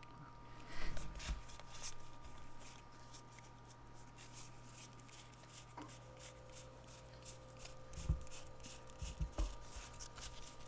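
A stack of 1992 Fleer baseball cards being flipped through and slid against each other by hand: a string of light card flicks and rustles, with a few soft low thumps from handling, about a second in and twice near the end.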